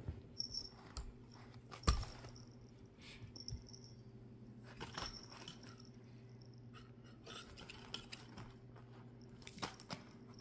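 Scattered clicks, taps and scrapes of a cat's claws pawing at a stainless steel cupholder, with one sharper knock about two seconds in. A low steady hum runs underneath.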